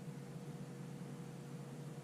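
Steady background hum and hiss with a faint constant tone, and no distinct event.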